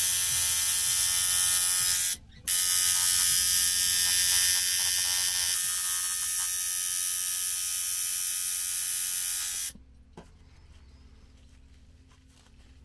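Coil tattoo machine buzzing steadily as it drives the needle into the skin of a forearm. It stops for a moment about two seconds in, starts again, and cuts off near the end.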